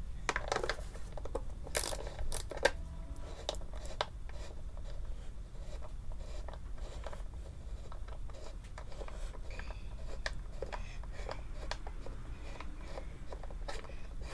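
Small hand ratchet clicking in short irregular runs, with scattered clinks of tool and bolt, as the bolts of a plastic engine timing belt cover are driven in. A low steady hum runs underneath.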